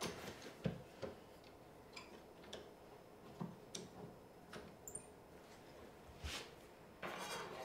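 Faint, scattered clicks and taps of an F-style bar clamp being slid into place and screwed tight onto a wooden board, with a short scraping rustle near the end.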